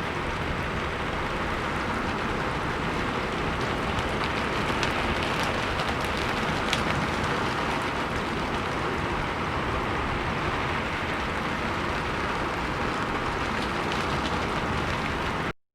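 Steady rain falling on a rooftop: a dense, even hiss with scattered drop ticks. It stops abruptly near the end.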